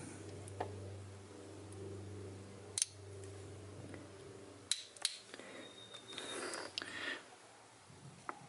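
Flat screwdriver tip prying at a belt pulley's dust cap: a few small sharp metal clicks and light scraping. A faint steady hum runs underneath and stops about halfway through.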